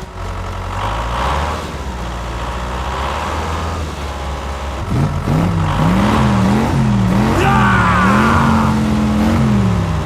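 Engine running at a low, fairly steady pitch, then from about halfway revving up and down in repeated swells. A higher wavering whine comes in briefly in the last third.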